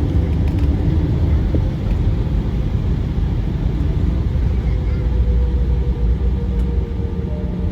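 Embraer ERJ 145's rear-mounted Rolls-Royce AE 3007 turbofans heard from inside the cabin: a steady, loud low rumble with faint steady whine tones above it.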